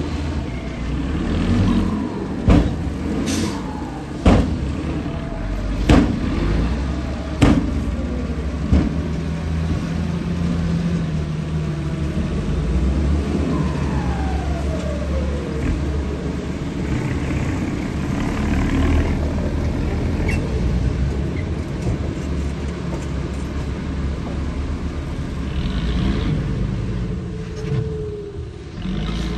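Radio-controlled bulldozer running with a steady low rumble. There is a series of sharp knocks in the first nine seconds and a falling whine midway.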